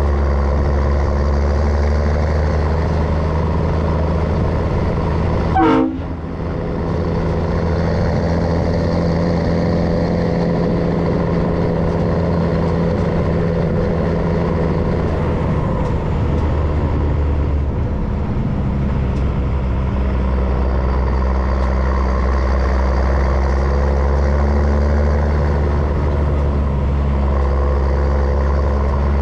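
MAN LE280B 4x4 truck's diesel engine running steadily on the move. About six seconds in there is a brief sharp sound, followed by a short dip as the engine note changes. The note shifts again a little past halfway.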